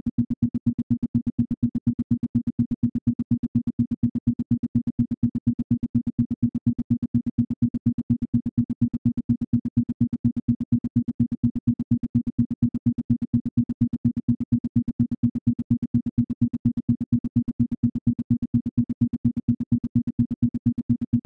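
Isochronic tone: a single steady low synthesized tone switched on and off in rapid, evenly spaced pulses, several a second, used for brainwave entrainment.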